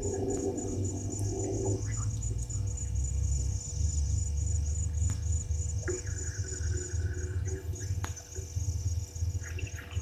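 Crickets chirping in a high, steadily pulsing trill over a low rumble. A few faint other calls and a couple of sharp ticks come through.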